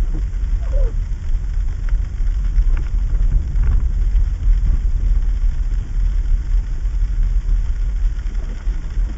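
Car driving slowly on a sleet-covered road, heard from inside the cabin: a steady low rumble of engine and tyres, with a few faint brief squeaks.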